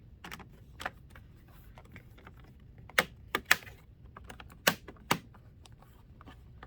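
Sharp plastic clicks and taps as the bottom access door of an HP ProBook 440 G4 laptop is fitted back into place, with louder clicks about three seconds in and again near five seconds.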